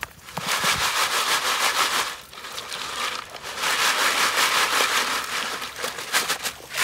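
Hands rinsing and stirring rocks and gravel in a bucket of water under a half-inch classifier screen: water sloshing with stones grating and clinking, in two long bouts.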